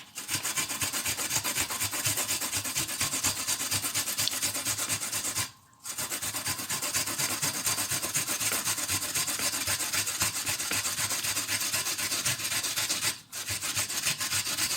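Kencur (aromatic ginger) rhizome being grated on a hand grater: rapid, continuous rasping strokes, pausing briefly twice.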